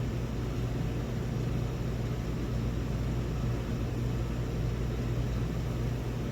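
A steady low mechanical hum with a wash of noise, unchanging throughout.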